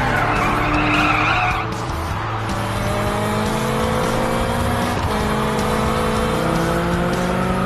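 Cartoon car sound effects: tyres screeching for about the first second and a half, then a car engine revving with a slowly rising pitch as it accelerates, over background music.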